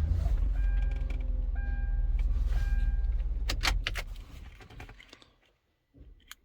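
Hyundai Veracruz V6 started and running briefly, with a short dashboard chime repeating about once a second over the engine, then shut off about four seconds in, followed by a few sharp clicks.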